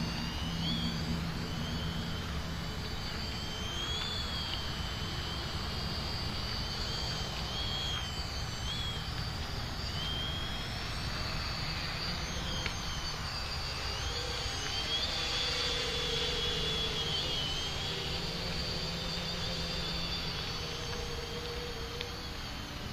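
Hobbyking Talon V1 quadcopter's motors and propellers whining in flight, the high pitch wavering up and down as the throttle changes, over a steady low rumble.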